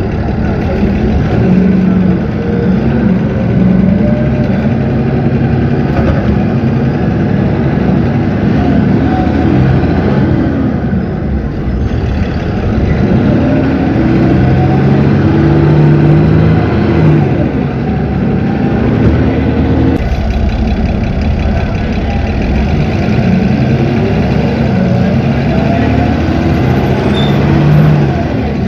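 Cummins ISB 6.7 inline-six diesel of a city bus running under load, its pitch rising several times as the bus accelerates and the Allison automatic transmission shifts up.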